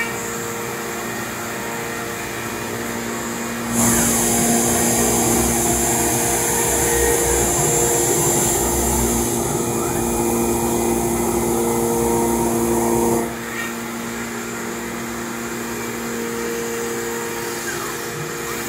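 Avid CNC router surfacing its spoilboard: the spindle turns a 2-inch surfacing cutter at 18,000 rpm while the gantry traverses at 600 inches per minute, with dust collection drawing through the shoe. It makes a steady whine and hiss that turns clearly louder and hissier from about four seconds in until about thirteen seconds in, then settles back.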